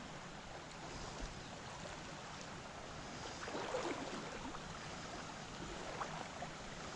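Steady, faint rush of a shallow creek flowing over stones, with a brief, slightly louder sound about halfway through.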